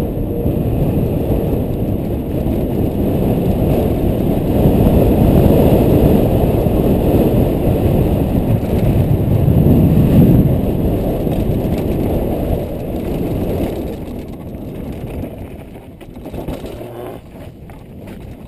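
Wind rushing over a helmet-mounted action camera's microphone, mixed with a downhill mountain bike's knobby tyres rolling over dirt and grass at speed. It is loudest in the middle and eases in the last few seconds, with some clattering knocks.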